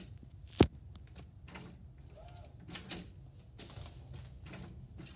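Epson SureColor SC-F570 printer mechanism working through its paper-loading and recovery cycle: a run of short mechanical clicks and whirs over a low hum, with one sharp, much louder knock about half a second in.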